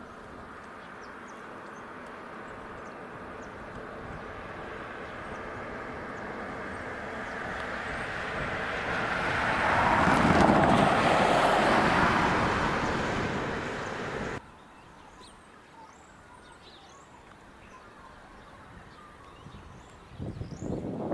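A road vehicle passing on the highway: its noise builds for about ten seconds, is loudest about ten seconds in, then eases off before cutting off abruptly.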